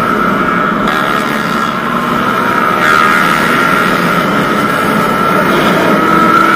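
Suzuki Satria FU motorcycle engine running at steady high revs while riding, with wind rushing over the microphone.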